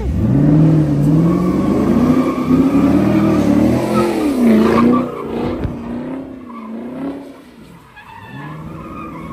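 Car engine revving up and down as the car spins donuts on wet pavement, with the tyres skidding. Loudest in the first half, it fades away and then rises again near the end.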